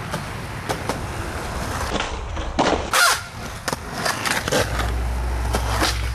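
Skateboard on concrete: wheels rolling with a series of sharp clacks as the board strikes the ground, the loudest about three seconds in. A steady low rumble of the rolling wheels takes over about two-thirds of the way through.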